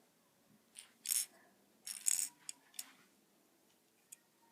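Small plastic Lego pieces clicking and rattling against each other as a built model is handled, in a few brief separate bursts.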